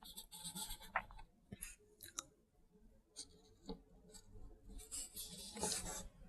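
Faint clicks and light handling noises of small plastic and metal RC car differential parts, a shaft and gears being fitted into the diff housing. The clicks are scattered, with a soft rustle near the end.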